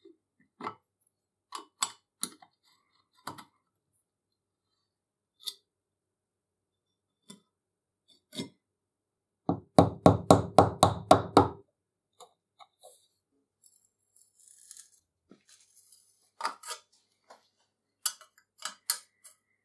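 Scattered metal clicks and clinks of tools and loose parts on an antique cast-iron ox-tongue iron, then, near the middle, a rapid run of about ten blows from a soft-faced mallet knocking on its wooden handle, the loudest part. Faint scraping and a few more clicks follow as a brittle asbestos insulation strip is worked out of the handle bracket.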